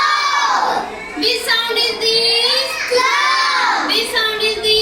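A child singing in a high voice, with drawn-out phrases that rise and fall in pitch and break briefly between them.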